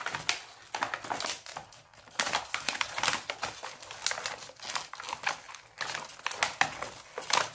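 Plastic crinkling and clicking as the packaging and plastic pieces of a toy fishing set are handled: an irregular run of crackles and clicks.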